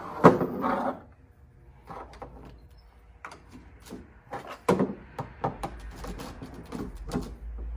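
3/4-inch PVC pipe lengths and elbow connectors being handled and pushed together: scattered hollow plastic knocks and clicks. The loudest knock comes just after the start and another a little under five seconds in.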